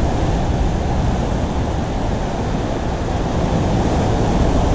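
Ocean surf surging and foaming through a narrow rock gutter, a steady rushing wash, with wind buffeting the microphone.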